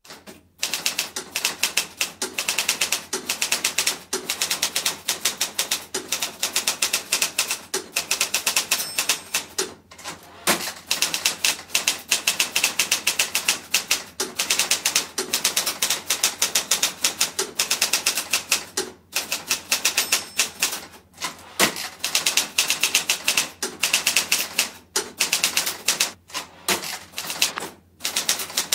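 Typewriter sound effect: rapid, steady key strikes clacking along as text is typed out, with brief pauses now and then.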